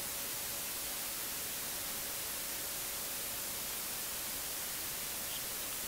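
Steady, even hiss of the recording's background noise, with no other sound standing out.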